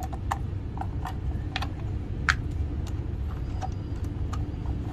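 Small irregular clicks and ticks of a screwdriver working screws out of an electric drill's plastic housing, about two or three a second, over a steady low hum.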